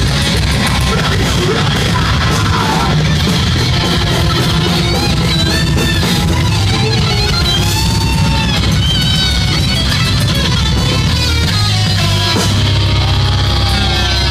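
Metalcore band playing loud and steady: heavily distorted electric guitars over drums and keyboard, with a bending high lead line coming in about a third of the way through.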